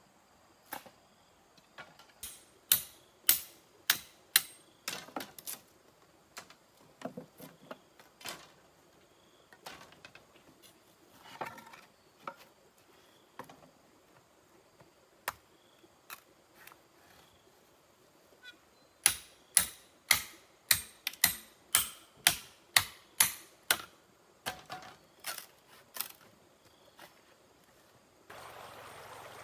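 Runs of sharp strikes of a tool on bamboo, about two to three blows a second, with scattered single knocks between the runs. Near the end it cuts to the steady rush of a stream.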